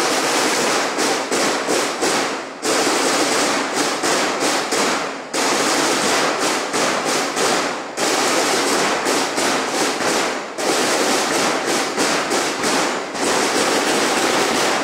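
Rapid, dense crackling of a string of firecrackers, most likely a played-back firecracker recording. It comes in loud runs that start abruptly and fade, restarting about every two and a half seconds.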